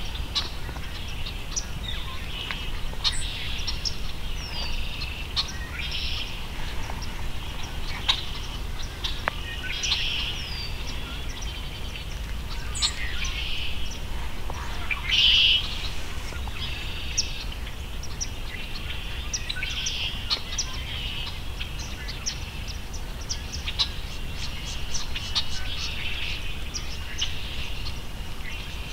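Many small birds chirping and calling, with one louder call about halfway through, over a low steady rumble.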